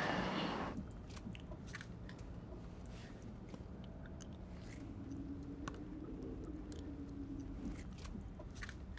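Eating sounds: a plastic spoon clicking and scraping in an ice-cream sundae, with chewing and small crunches, faint and scattered. A faint low hum runs for a few seconds in the second half.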